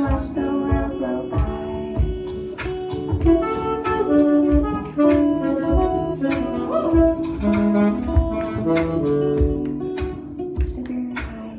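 Instrumental passage of a small live band: saxophone playing melody lines over guitar, with a beatboxed mouth-drum beat of low kicks and sharp snare-like clicks.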